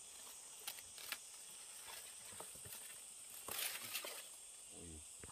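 Faint, steady high-pitched chirring of insects. A few light clicks come about a second in, and a brief rustle about three and a half seconds in.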